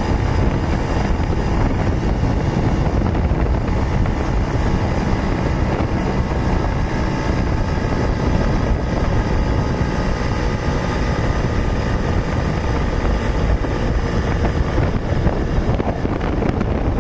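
Suzuki Tornado motorcycle running steadily while being ridden, with wind rushing over the microphone.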